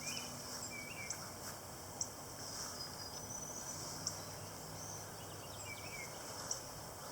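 Outdoor background: a steady high-pitched insect trill with a few short bird chirps.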